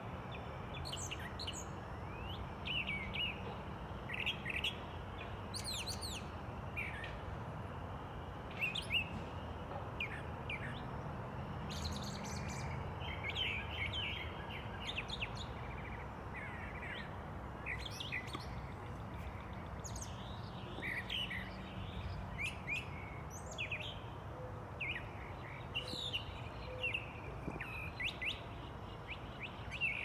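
Dawn chorus of several songbirds: short, sharp chirps and whistles from different birds, coming thick and overlapping throughout, over a steady low rumble of background noise.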